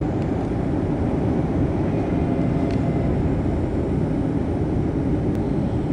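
Boeing 737-800 cabin noise: the steady rush of its jet engines and airflow past the fuselage, heavy in the low end.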